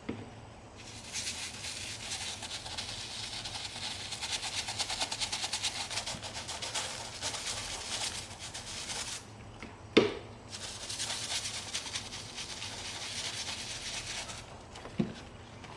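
A brush scrubbing a leather ball glove in two long bouts of fast, even strokes, with a single knock between them and a couple of light taps near the end.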